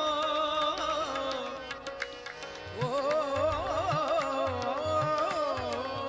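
Background music in an Indian classical style: a steady drone under an ornamented, sliding melody line that pauses briefly about two seconds in and comes back a second later.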